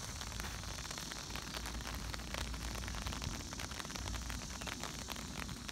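Steady rain pattering on a family tent's flysheet: an even hiss dotted with many quick drop ticks, over a low rumble.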